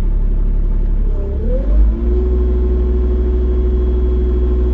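Excavator engine running steadily, heard from inside the cab; about a second and a half in its note dips and shifts, then settles into a steady, slightly higher hum.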